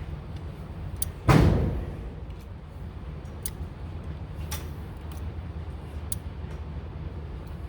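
A single gunshot about a second in, its report echoing off the walls of an indoor range, over a steady low rumble. A few faint clicks follow.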